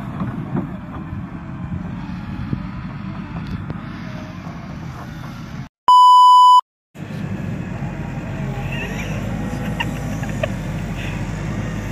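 A telehandler's diesel engine running steadily, cut about six seconds in by a loud one-second 1 kHz test-tone beep and a brief silence. Then a JLG telehandler's engine runs on steadily.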